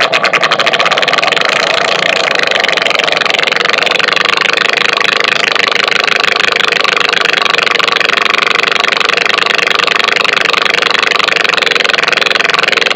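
Harsh noise music: a loud, dense wall of distorted noise with a fast, even flutter and no beat or melody.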